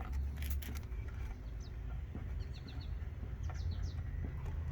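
Small birds chirping in short quick runs of high, falling notes, over a steady low background rumble, with a few sharp clicks in the first second.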